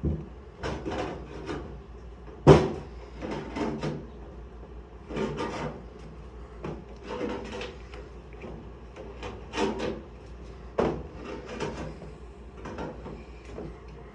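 Hand star crimping pliers squeezing crimps into the end of a thin sheet-metal HVAC duct. It is a series of irregular metallic clicks and scrapes, with one sharp, louder clack about two and a half seconds in.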